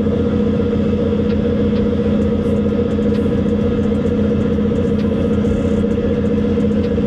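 A ferry's diesel engines droning steadily under way, with an even, pulsing low throb beneath two steady hum tones.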